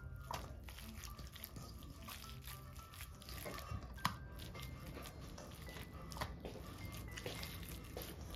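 Hands squishing and kneading a raw ground-beef meatball mixture in a stainless steel bowl, with a few light clicks against the bowl. Faint background music plays underneath.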